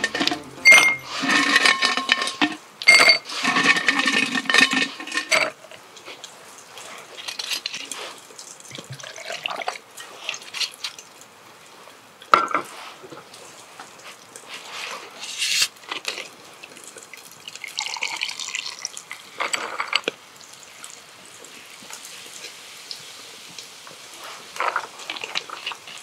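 Highball being made: liquid poured into a glass amid clinks of glass and dishes. The clinking and pouring are loudest and densest in the first five seconds, then thin out into scattered pours and knocks.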